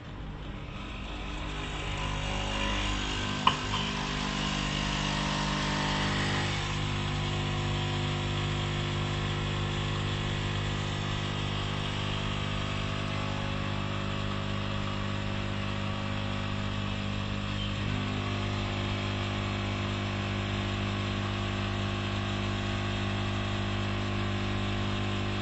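Nespresso Essenza Mini's vibratory pump buzzing steadily as it pushes water through a capsule during brewing. There is a sharp click about three and a half seconds in, and the tone of the buzz changes about six seconds in.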